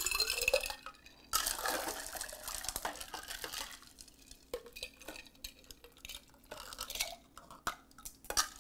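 Cucumber lemonade scooped with a ladle from a glass pitcher and poured into a glass mason jar. Splashing and trickling of liquid, with short clinks of the ladle against glass.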